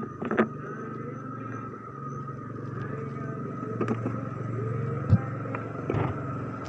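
A motor vehicle engine running steadily, slowly getting a little louder, with a few sharp knocks, the loudest about five seconds in.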